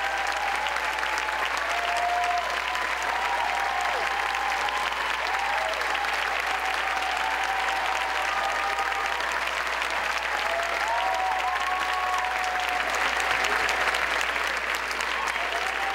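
Large theatre audience applauding steadily, with scattered cheers and whoops.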